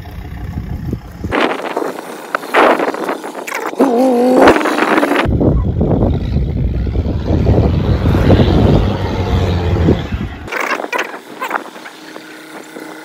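SUV engine revving and pulling hard under load as it climbs a steep slope. The sound changes abruptly several times between short takes, and is loudest with a heavy low rumble in the middle.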